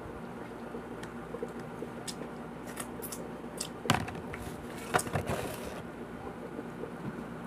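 Close-up eating sounds: fingers handling food, then chewing with scattered small mouth clicks and two sharper smacks about four and five seconds in, over a steady low hum.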